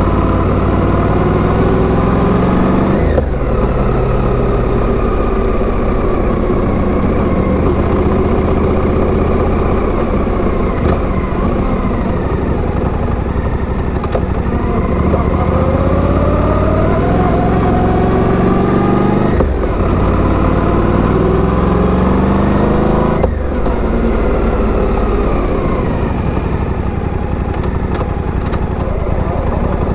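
Motorcycle engine running while riding, its pitch rising and falling with the throttle. There are gear changes about three seconds in and twice more in the second half.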